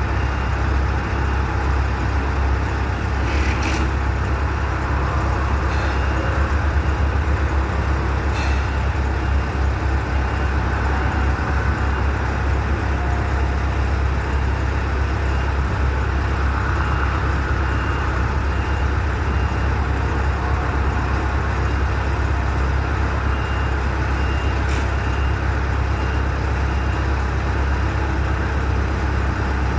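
Steady low rumble of a heavy engine, like a truck or site machine running, with a few short sharp clicks.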